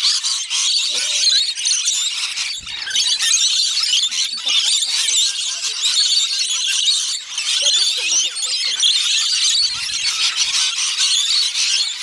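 A large flock of rainbow lorikeets screeching and chattering while feeding, a continuous, dense, high-pitched din of many overlapping calls.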